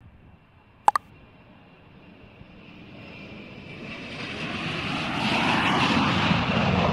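Intro sound effect: a sharp double click about a second in, then a rushing noise that swells steadily over several seconds, like an aircraft passing.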